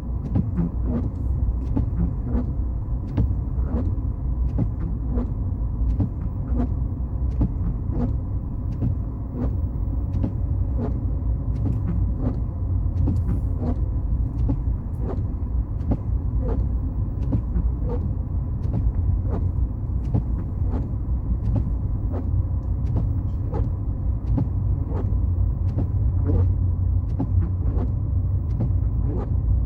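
Car driving: steady low road and engine rumble with frequent short, sharp ticks, one or two a second.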